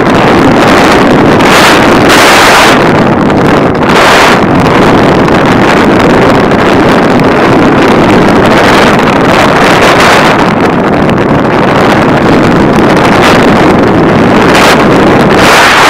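Loud, steady rush of air buffeting the microphone of a camera riding under an RC plane in flight, swelling into brighter, hissier surges several times.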